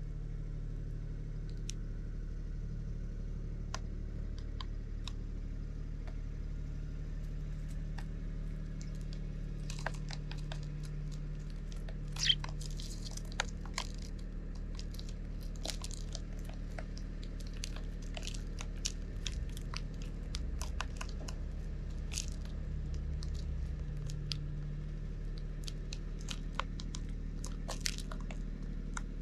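Eurasian tree sparrows pecking mixed seed from shallow plastic trays: small sharp clicks of beaks on the trays and seeds being cracked. The clicks are sparse at first, come thick and fast from about a third of the way in, and one tap stands out louder. A low steady hum runs underneath.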